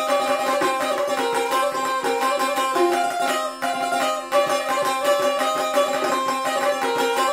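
Solo çifteli, the Albanian two-string long-necked lute, playing a Tropojë dance tune: a quick strummed melody on one string over a steady drone held on the other.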